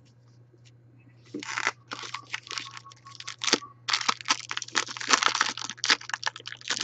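Plastic card-pack wrapping crinkling and tearing in quick rustles, starting about a second and a half in, over a low steady electrical hum.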